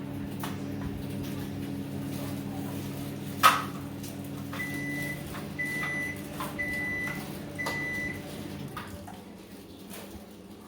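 An electrical appliance hums steadily. A sharp click comes about three seconds in, followed by four short, evenly spaced high-pitched beeps, and the hum cuts off shortly before the end.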